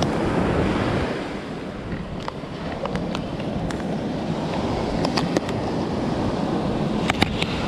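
Ocean surf washing steadily onto the beach, with wind buffeting the microphone and a few light clicks.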